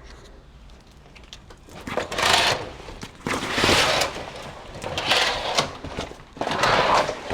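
Hotel room curtains being drawn open by hand, sliding along their rod in four swishing pulls.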